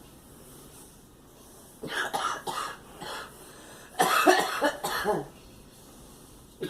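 A girl coughing: a few short coughs about two seconds in, then a longer, louder run of coughs about four seconds in.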